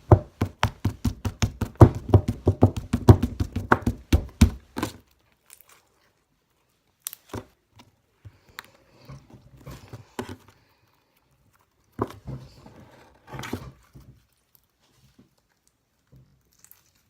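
Slime being kneaded and folded by hand, giving a fast run of sharp wet pops and clicks for about five seconds, then scattered quieter pops.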